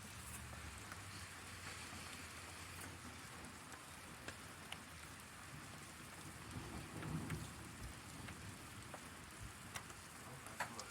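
Steady rain falling, with scattered sharp drop ticks, and a brief low rumble swelling about seven seconds in.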